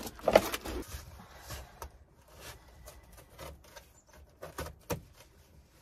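Scratchy rustling and scuffing of flooring underlayment being pressed and shifted by hand on a van floor, with scattered light taps. A louder bump comes just after the start and a sharp click about five seconds in.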